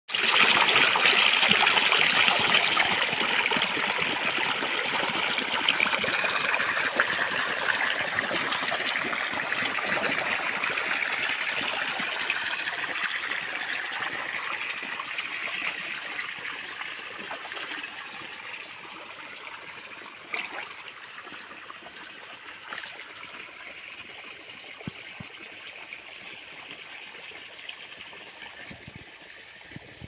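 Water pouring out of a pipe outlet and splashing into a shallow pool, a steady rushing that fades gradually to a quieter flow of water trickling along an open channel. A couple of small knocks sound about two-thirds of the way through.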